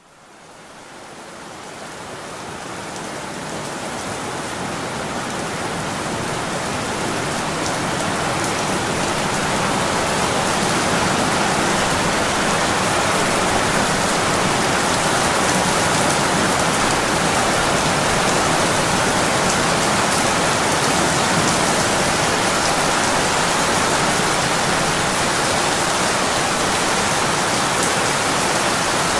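Steady rain falling, a dense hiss of drops. It fades in from silence over the first ten seconds or so, then holds level.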